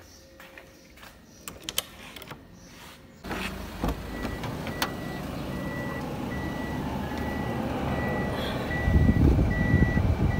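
A few handling clicks, then about three seconds in a Daihatsu Mira's engine starts and runs, heard from inside the cabin. From about five seconds in, the car's electronic warning beeper sounds short beeps at a steady pace over the engine.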